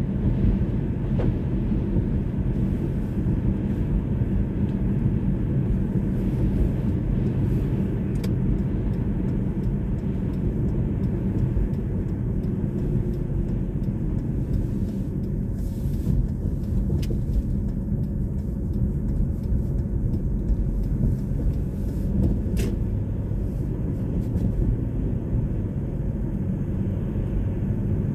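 Steady low rumble of a vehicle on the move: engine and road noise with no change in pace, and a couple of faint clicks.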